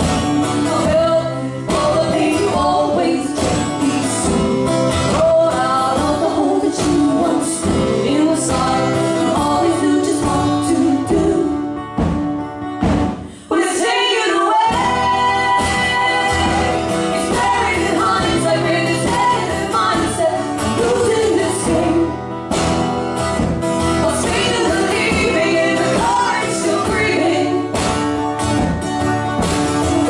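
Two women singing together over two strummed acoustic guitars. The music drops away briefly about halfway through, then comes back in.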